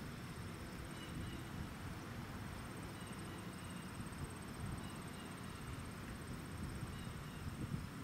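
Quiet outdoor ambience: a low, steady rumble with a faint, high-pitched, rapidly pulsing insect trill throughout and a few faint chirps; no siren tone is heard.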